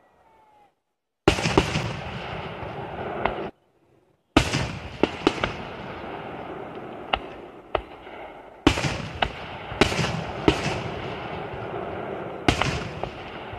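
Aerial firework shells bursting overhead: about ten sharp bangs, with a constant rumble of further bursts and echoes between them. The phone's recording is silent for the first second and cuts out abruptly for about a second some three and a half seconds in.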